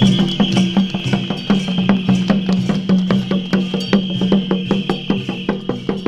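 Lion-dance troupe's percussion band playing: a drum beaten in a fast, steady stream of strokes under gongs and cymbals ringing on.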